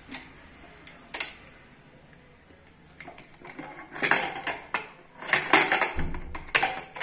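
Aluminium pressure cooker's inner-fitting lid being twisted free and lifted out after cooking, knocking and scraping against the pot's rim. Two single light clicks, then from about four seconds in a run of close metal clanks, with more near the end.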